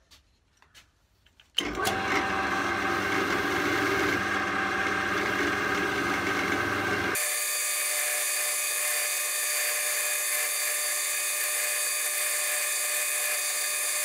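Pillar drill spinning an abrasive Scotch-Brite wheel to polish small brass and steel parts. It comes in suddenly about a second and a half in and runs steadily. About halfway through, its deeper tones cut out abruptly.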